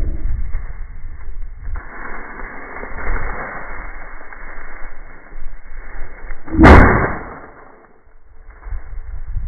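A single shotgun shot about two-thirds of the way in, sharp and loud, over a low wind rumble on the microphone.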